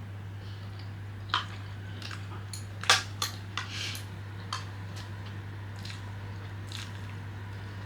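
Chopsticks clicking and tapping against dishes while picking up food: a handful of sharp clicks, the loudest about three seconds in, over a steady low hum.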